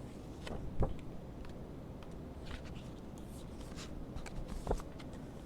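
Quiet room tone with faint paper rustling and two soft knocks, about a second in and near the end, as a picture book is handled.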